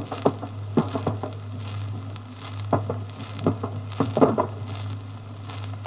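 Scattered gunfire: irregular sharp reports, some single and some in quick clusters of two or three, with a cluster a little past four seconds in. A steady low hum from the old disc recording runs beneath.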